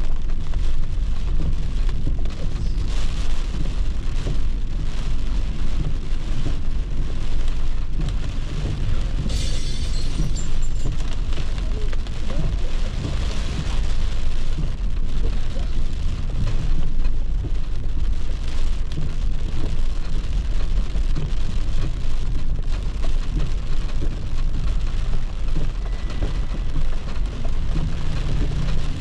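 Rain on a moving car's windshield and roof, heard from inside the cabin over the steady low rumble of the car driving.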